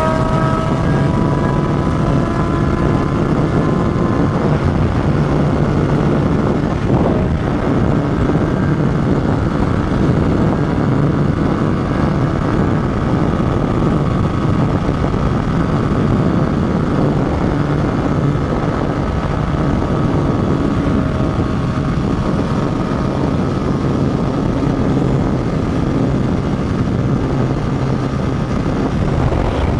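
Motorcycle engine running steadily at cruising speed under a loud, even rush of noise, its pitch drifting slowly up and down with no hard revving. There is a brief knock about seven seconds in.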